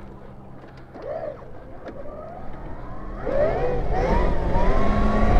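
MotoFlow K3000 electric dirt bike's motor whining as it pulls away in first gear. The whine rises in pitch from about two seconds in and then holds steady near the end, while a low rumble builds underneath.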